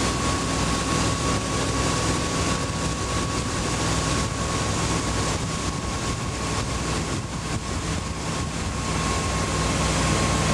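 Motorboat engine running steadily under way while towing, with the rush of churning wake water.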